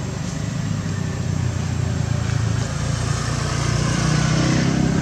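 An engine running steadily, growing louder over the second half.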